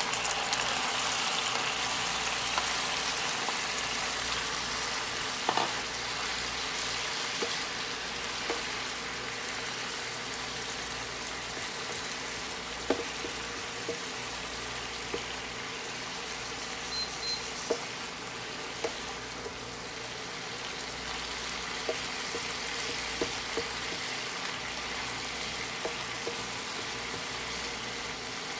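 Boiled broccoli florets sizzling in hot oil and garlic in a stainless-steel frying pan, loudest as they go in and then settling to a steady sizzle. Occasional short clicks and knocks of a wooden spatula against the pan as the broccoli is stirred.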